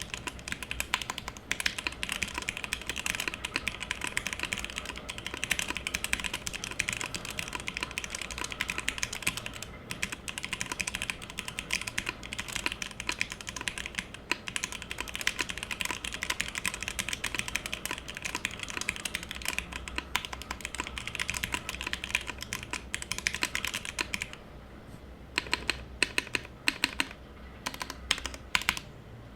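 Continuous rapid typing on the letter keys of a top-mounted Matrix 1.2og mechanical keyboard: lubed and filmed FFF switches in an aluminum full plate with no foam, under GMK Handarbeit keycaps. The keystrokes come in a dense stream, break off briefly near the end, then resume more spaced out.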